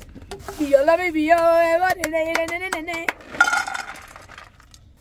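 A high-pitched voice holding long, wavering notes for about two and a half seconds, followed by a short breathy burst, with light clicks and clinks around it.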